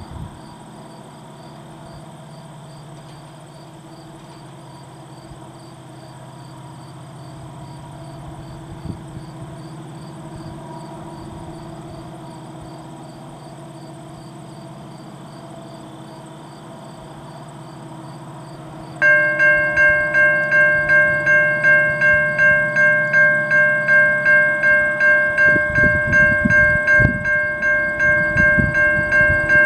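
A steady distant hum of an approaching freight train. About two-thirds of the way through, a level-crossing warning bell starts abruptly and rings about twice a second, signalling the train's approach. Near the end, the low rumble of the oncoming train builds under the bell.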